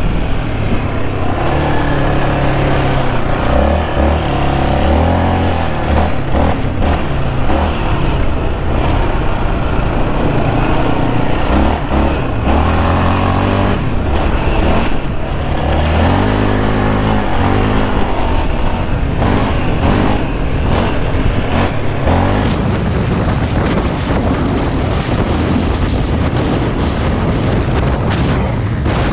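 Yamaha Raptor 700R ATV's single-cylinder engine with aftermarket Monster exhaust, ridden hard on a dirt trail; the engine pitch climbs and drops again and again as the throttle opens and closes through the gears.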